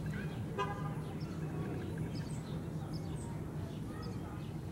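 Small birds chirping in short, scattered high calls over a steady low hum, with a brief pitched call about half a second in.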